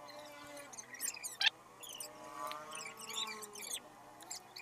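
Faint background of high chirping with distant wavering voice-like tones, and one sharp click about one and a half seconds in.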